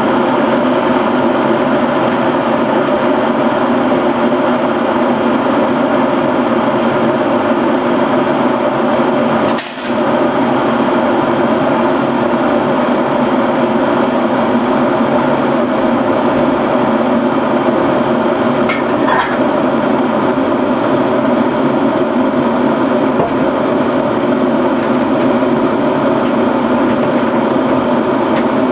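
Redmond RK-M1441 electric kettle heating water toward the boil: a steady rushing noise, with a brief dip about ten seconds in.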